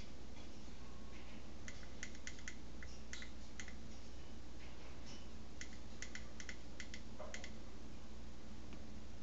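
Quick runs of sharp clicks from keys or buttons being pressed, several in a row, in groups a second or two apart, as the display's update rate is stepped down. A steady low hum lies underneath.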